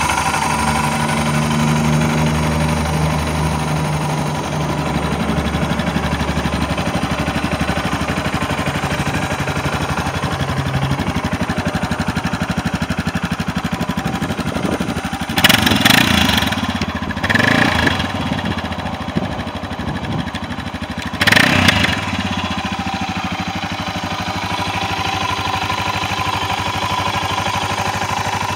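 Suzuki DR650's 644 cc single-cylinder four-stroke engine idling steadily, with the throttle opened in short revs about halfway through, the loudest at around the halfway mark and another a few seconds later.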